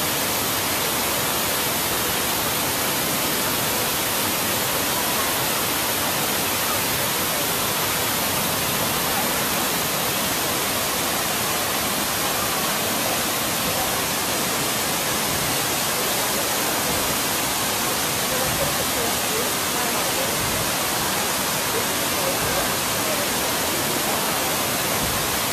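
Steady, even rush of running water in the pond, with faint voices in the background in the later part.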